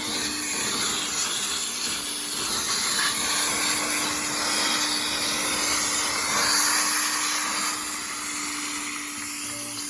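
Wet vac running, its hose sucking water and white sludge out of an air conditioner's clogged condensate drain tray: a steady motor hum under a continuous rushing hiss.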